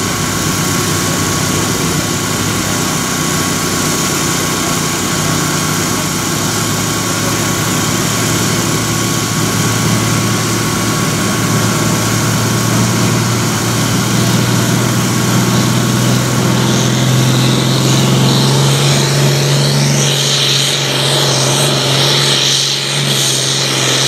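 International Harvester farm tractor's diesel engine at full throttle under heavy load, pulling a weight-transfer sled: a loud, steady drone that grows stronger in the last third.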